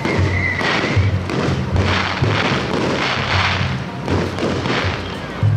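A large taiko drum beating a steady rhythm of low thuds, under fireworks bursting and crackling overhead.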